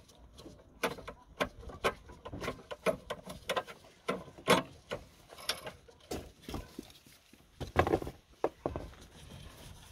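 Irregular clicks and knocks of a hand tool working loose the diesel fuel filter's support bracket on a Dacia Logan 1.5 dCi. Two louder knocks come about halfway through and near the end.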